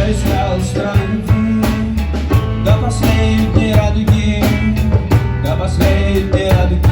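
A rock band playing live, with drums keeping a steady beat under bass and guitar.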